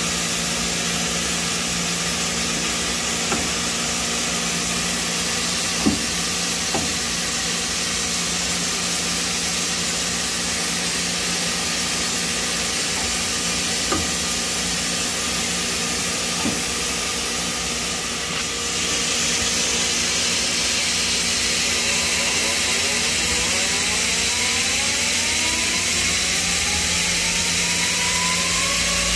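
Mazak Integrex 100-IV ST CNC turn-mill lathe running under power: a steady mechanical hum with several fixed tones, broken by a few sharp clicks as the milling head moves. About two-thirds of the way through the hum steps up, and rising whines follow as the spindle speeds up.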